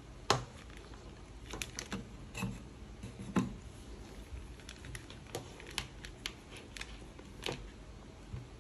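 Irregular light clicks and knocks from a Braun hand blender being handled, with sharper knocks about a third of a second in and again about three and a half seconds in. No motor is heard running.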